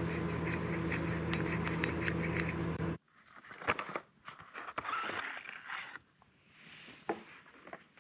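A steady hum with hiss that cuts off abruptly about three seconds in, followed by scattered light scrapes and clicks of small brake caliper parts being handled.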